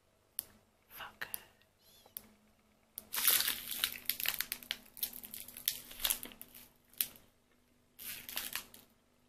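A Quest protein bar's foil-plastic wrapper being torn open and crinkled by hand. A few light crackles come first, then about three seconds in a long run of crinkling and tearing, and a shorter burst of crinkling near the end.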